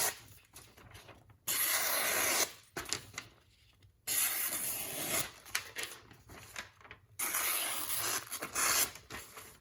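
Freshly sharpened Spyderco Military folding knife's S30V blade slicing through thicker phone book paper to test the edge: three rasping cuts, the middle one the longest.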